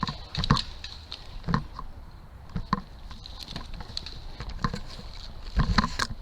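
Scattered thuds and clicks over a light ticking rustle. The loudest knocks bunch together near the end.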